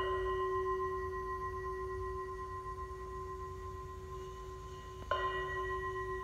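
Music: a struck, bowl-like bell tone ringing on a few steady pitches and slowly fading, then struck again about five seconds in.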